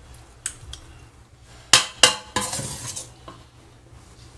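A metal spoon clinking against cookware while spooning out chicken and onion filling: a few light taps, then two loud ringing clinks about two seconds in, followed by a short scrape.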